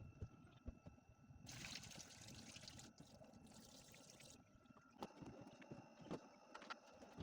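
Water pouring out for about three seconds, starting about a second and a half in, with a brief break midway. Under it runs a faint steady high hum with scattered light clicks.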